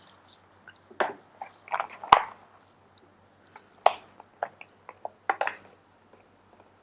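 Handling noises from a phone, its silicone cover and its cardboard box: scattered clicks, taps and short scrapes, with one sharp knock about two seconds in.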